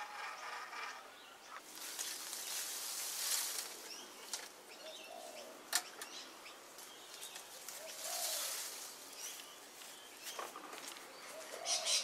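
Outdoor garden ambience. A small electric motor's whir dies away in the first second, followed by a few short bird calls and soft passing rushes of noise, with one sharp click about six seconds in.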